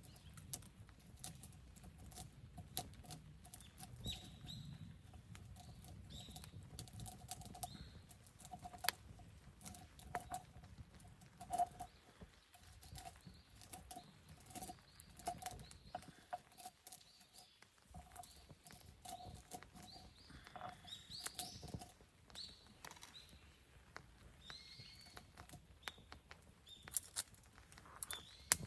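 Campfire burning, the wood crackling with irregular sharp pops and snaps.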